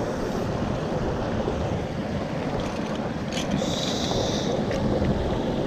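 Mountain stream water rushing steadily over rocks. A brief higher hiss and a few small clicks come just past the middle.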